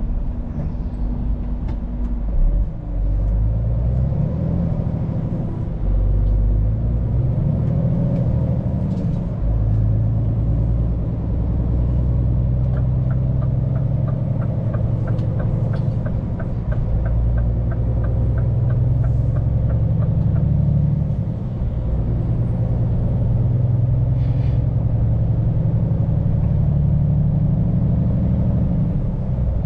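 A Scania P410 truck's diesel engine, heard from the cab while driving, rises in pitch twice in the first ten seconds as it pulls through the gears, then runs steadily. In the middle a turn indicator ticks at about three ticks a second for several seconds.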